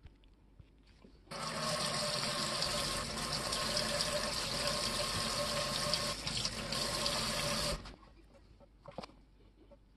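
Kitchen faucet running, water splashing into a stainless steel sink as a metal shear blade is rinsed under it. It comes on suddenly about a second in and stops abruptly near the eight-second mark.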